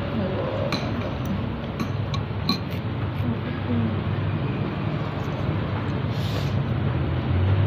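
Metal spoon clinking against a bowl of bakso, several short clicks in the first three seconds, over a steady background murmur.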